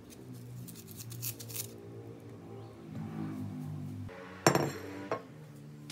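Kitchen knife cutting the cores out of apple wedges on a wooden cutting board, giving a run of crisp cuts in the first two seconds. A sharp knock about four and a half seconds in is the loudest sound, followed by a smaller one. Soft piano music plays underneath.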